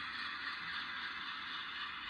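Steady diesel engine sound from an HO scale Atlas Dash 8-40B model locomotive's DCC sound decoder, played through its small onboard speaker: a thin, even rumble-hiss with no deep bass.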